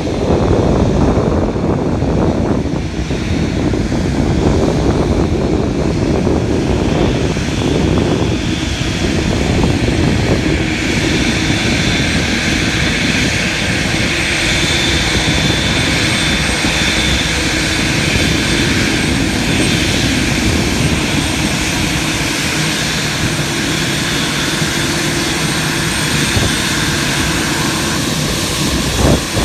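Boeing 787-9 airliner's jet engines running, a steady loud rush with a high whine that comes in about a third of the way through and holds.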